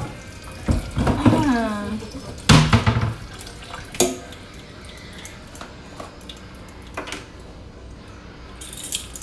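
Kitchen cupboard and containers being handled: a few knocks and clicks, the loudest about two and a half seconds in, with a brief voice about a second in, over a steady faint hiss.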